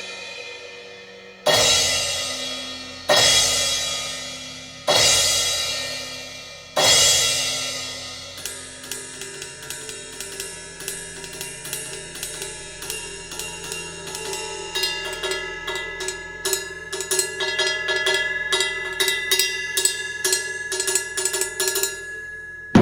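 Cymbals struck four times, each crash ringing out and fading, then a fast run of light, ringing cymbal and hi-hat strikes that grows busier toward the end.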